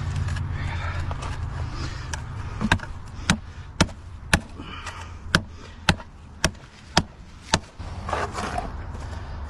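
A run of about ten sharp knocks, evenly spaced at roughly two a second, over a low steady rumble.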